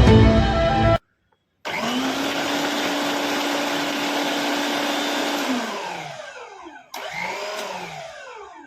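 Mixer grinder's 750-watt motor running at a steady high speed, then switched off and winding down with a falling pitch. After a cut, a second short wind-down follows. A little background music plays at the very start.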